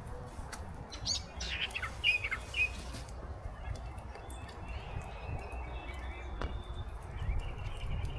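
Small birds chirping: a quick run of short high chirps about a second in, then fainter calls later. A low steady rumble lies underneath.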